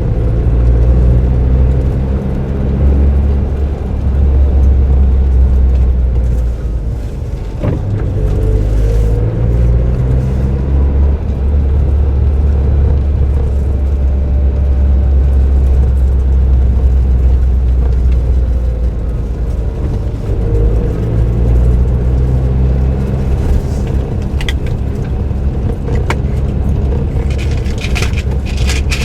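Suzuki Jimny JB23W's 660 cc turbo three-cylinder engine and aftermarket exhaust running under way, a steady low drone whose pitch rises and falls as the car accelerates and eases off. A sharp tick about seven seconds in and a few light clicks near the end.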